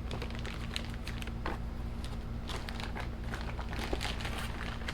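Plastic packaging crinkling, with scattered light clicks, as new tie rods are handled, over a steady low hum.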